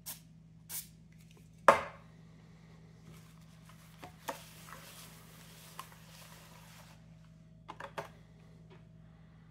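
Two short hisses from an aerosol spray can dispensing onto a cotton swab, then a single loud knock as the metal can is set down on the table. A stretch of soft cloth rubbing follows, and a few small taps and knocks near the end.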